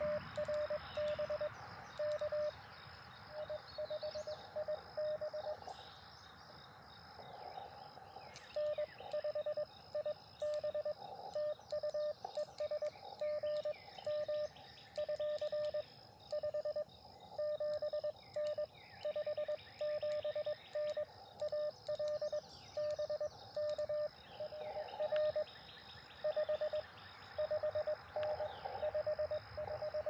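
Morse code (CW) tones from an Elecraft KX2 transceiver's speaker: one steady medium-pitched tone keyed in quick dots and dashes. About six seconds in, the keying stops for a few seconds and only faint band hiss is heard before it resumes.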